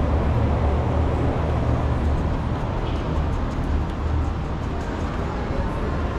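Outdoor city street background noise: a steady low rumble under an even hiss, without distinct events.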